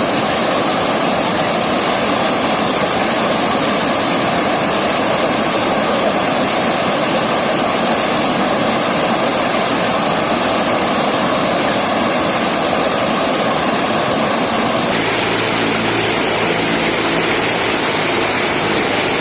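River water rushing steadily over rocks, a loud continuous wash; about three-quarters of the way through its tone shifts to a deeper rumble.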